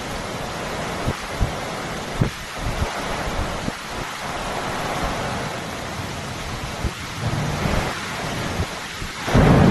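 Heavy monsoon rain pouring steadily, with short low thumps scattered through and a louder, fuller burst near the end.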